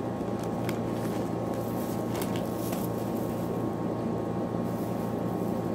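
Steady machine hum with a constant low drone, like a running appliance, and a few faint soft ticks and rustles from gloved hands handling pastry wrappers.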